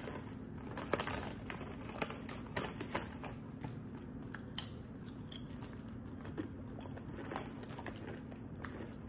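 Crinkling of a foil-lined chip bag as a nacho cheese tortilla chip is taken out, then crunching as the chip is bitten and chewed: a run of small sharp crackles, busiest in the first few seconds and sparser after.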